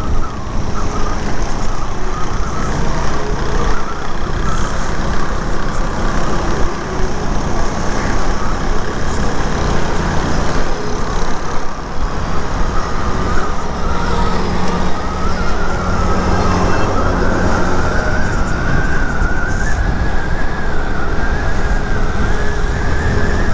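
Motorcycle riding at road speed: the engine runs under heavy wind rush on the microphone. A wavering high whine rises slightly in pitch over the second half.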